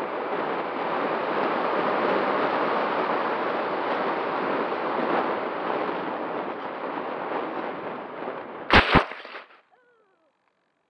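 Superbee FPV quadcopter's motors and propellers running in flight, heard through the onboard camera as a dense rushing noise. Nearly nine seconds in, the quad hits the ground with two sharp knocks close together, and the motor noise dies away within a second.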